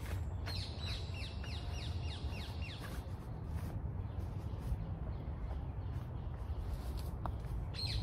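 A wild bird calling in the woods: a quick run of about ten short, descending chirps lasting a couple of seconds, over a steady low rumble.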